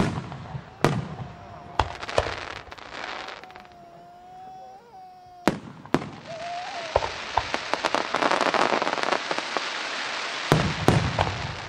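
Aerial firework shells bursting: several sharp bangs in the first few seconds and another about five and a half seconds in, then a dense crackling of many small pops building from about six seconds in, with two more loud bangs near the end. A thin wavering whistle runs between the early bursts.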